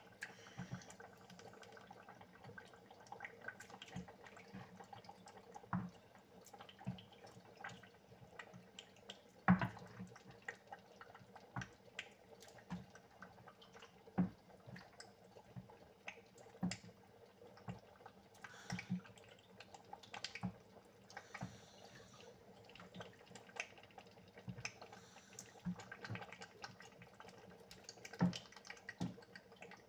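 Pot of thick Nigerian tomato stew simmering, with bubbles popping at irregular intervals over a faint steady hum.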